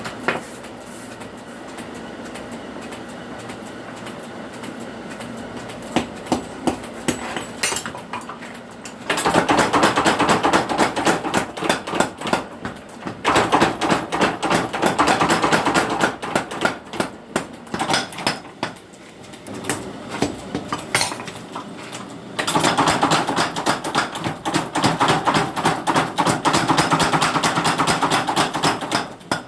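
A blacksmith's hammer striking hot steel on the anvil while forging a blade. A steady hum comes first, then single blows about six seconds in, then long runs of rapid, continuous strikes, with slower single blows between the runs.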